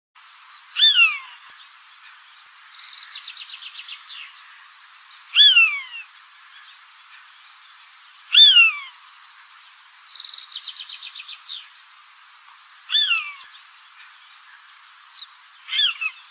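A bird calling: a sharp whistled call sliding downward, given five times a few seconds apart, with a fast rattling trill twice between the whistles.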